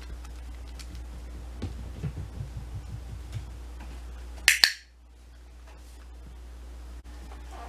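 A puppy's light paw steps patter across a floor and onto a foam mat, then one sharp double click.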